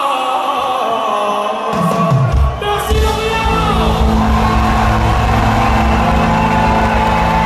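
Live reggae band heard through a concert PA from the audience: a singer's voice with no bass under it, then about two seconds in a falling low sweep drops into a heavy bassline and the full band.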